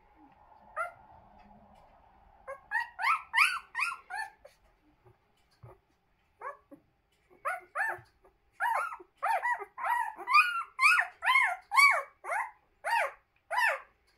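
Puppies in their second week squeaking and whimpering: many short, high-pitched squeals, each rising then falling in pitch. A brief run comes about three seconds in, then a longer, denser run through the second half.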